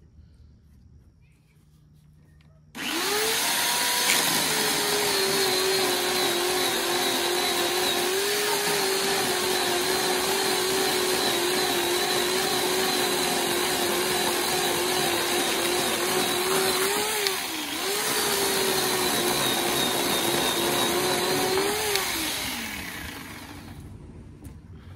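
Electric chainsaw motor starting up about three seconds in and running with a steady whine, dropping briefly and picking up again about two-thirds through, then winding down near the end.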